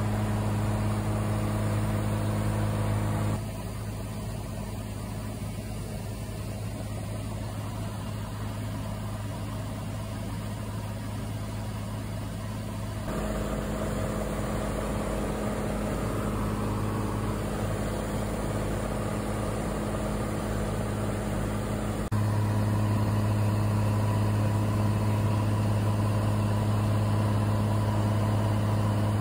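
Cessna 182's piston engine and propeller droning steadily in cruise, heard inside the cabin. The drone shifts suddenly in level and tone three times.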